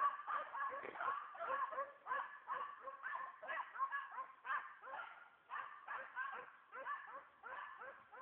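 A continuous chorus of many animals yelping over one another, short dog-like calls several times a second.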